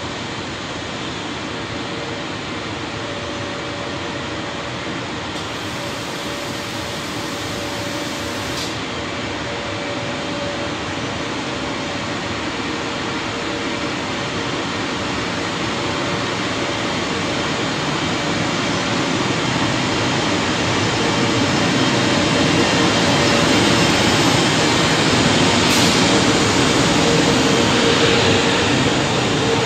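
Italian FS E.652 electric locomotive approaching and passing at speed with a freight train of loaded flat wagons. The steady rolling rumble grows gradually louder as it nears and is loudest near the end as the locomotive and wagons go by, with a faint steady hum running through it.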